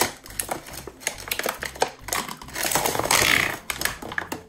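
Stiff plastic toy packaging crackling and clicking as it is handled and pulled open, with a louder spell of crinkling about two and a half seconds in that lasts about a second.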